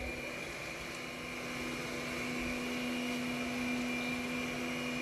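Robot vacuum cleaner running: a steady motor hum with a high whine over the hiss of its suction.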